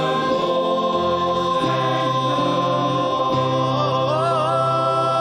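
A choir of voices holds a long sung chord at the end of a gospel-style musical-theatre phrase. The notes underneath shift a few times, and about four seconds in one high voice climbs to a held note with vibrato.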